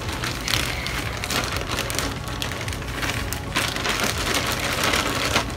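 Continuous crackling rustle from something being handled close to the microphone, made of many small crackles with no pause.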